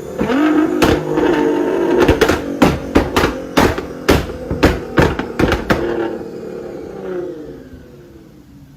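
Sports car engine revving with a dozen or so sharp pops and cracks. About six seconds in the pops stop, and the engine note falls in pitch and fades away.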